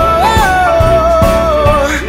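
Background pop song: a singer holds one long note that steps up briefly and then slides slowly down, over a steady drum beat.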